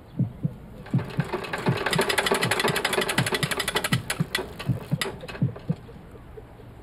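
A fast mechanical rattle of about ten clicks a second over a run of dull low thuds. The rattle starts about a second in and stops a little past the middle, and the thuds thin out soon after.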